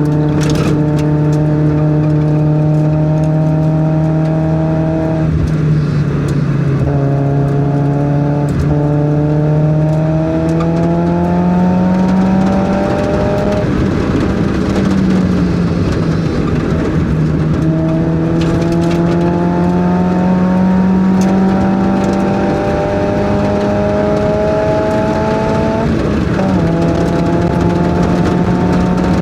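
Mazda Miata's inline four-cylinder engine driven hard on track. The engine note climbs under throttle, then drops sharply at gear changes and lifts several times before climbing again.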